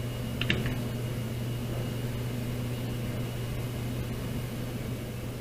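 Steady hum of a desktop computer's cooling fans, with a brief click or two about half a second in as the machine is made to reboot.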